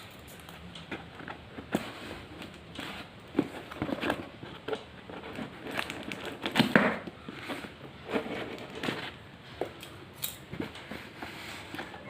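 Packaging being handled and opened: irregular rustling, crinkling and small taps, with a louder crackling burst about halfway through.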